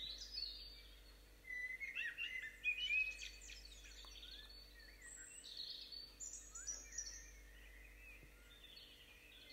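Several birds chirping and singing, quietly, with a busy run of calls about one and a half to three seconds in and another around six to seven seconds.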